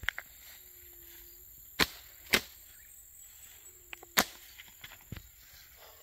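A series of short, sharp cracks, the three loudest about two, two and a half and four seconds in, and a weaker one about five seconds in.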